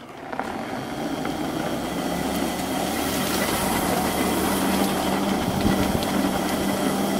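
Bounder power wheelchair's electric drive motors running at full throttle, drawing about 20 amps, with the wheels rolling over pavement. The noise builds over the first second as the chair gets up to speed, then holds steady, with a steady hum settling in a few seconds in.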